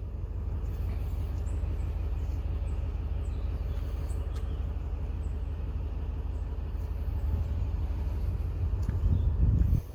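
A steady low rumble with no clear pitch, which grows louder about nine seconds in and then cuts off suddenly.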